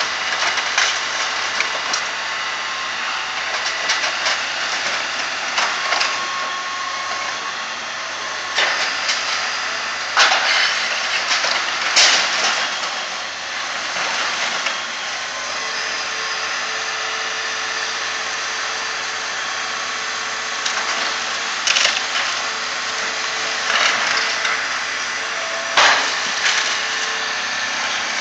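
Excavator's diesel engine running steadily while its bucket and thumb tear into a sheet-metal-clad building, with wood and metal crunching and splintering. Several loud crashes as pieces of wall give way, the loudest about ten and twelve seconds in and again near the end.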